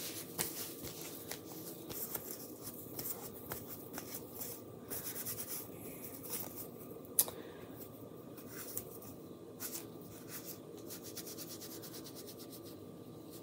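Paint being wiped off fingers with a wipe: soft, irregular rubbing and rustling, with small ticks and one sharp click about seven seconds in.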